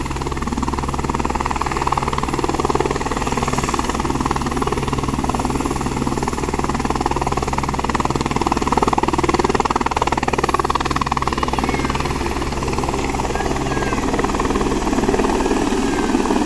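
Firefighting helicopter's rotor and turbine engine running steadily and loudly as it hovers low over a river to fill its underslung water bucket, then climbs away with the full bucket near the end.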